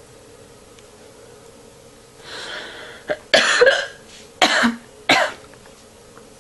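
A person hiccuping three times, really loud, each hiccup a sharp burst from the throat, about a second apart, after a short breath.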